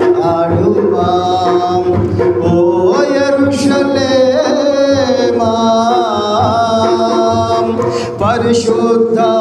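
A man singing a Telugu Christian devotional song into a handheld microphone, drawing out long wavering notes with no clear words.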